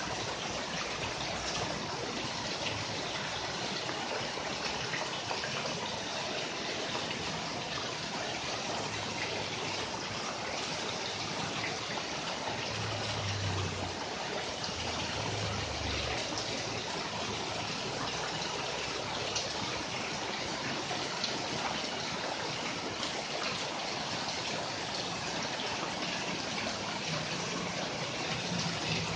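Steady rain falling on leaves and potted plants, an even hiss scattered with many small drop hits.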